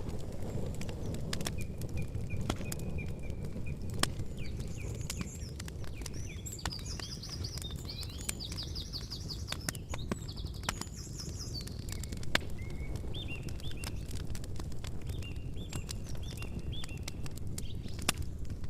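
Campfire crackling with frequent sharp pops over a low, steady rumble, while small birds chirp and sing rapid trills in the background, busiest in the middle.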